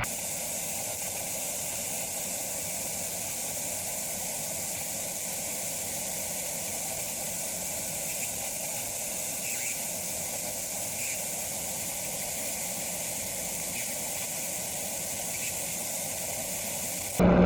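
Steady radio static hiss with a few faint crackles, cutting in and out abruptly.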